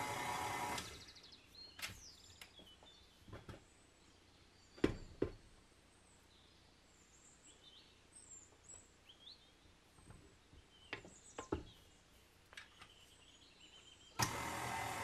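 KitchenAid stand mixer running as it mixes bread dough, stopping about a second in. Then a few knocks and taps of a silicone spatula against the stainless steel bowl, two pairs louder than the rest. The mixer starts up again near the end.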